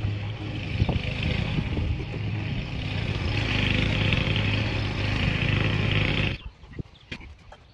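A steady motor drone with a constant low hum, cutting off abruptly about six and a half seconds in, followed by a few faint clicks.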